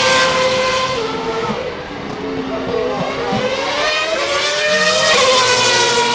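Formula One cars' 2.4-litre V8 engines running at high revs around the circuit, several engine tones overlapping and sliding up and down in pitch as cars pass, with one rising and then falling away about five seconds in.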